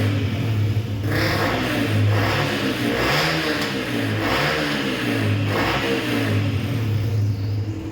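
Yamaha R15 V2's 150 cc single-cylinder engine revved in repeated throttle blips through an Akrapovic full-system exhaust with its dB killer fitted, the pitch rising and falling with each blip. Very loud.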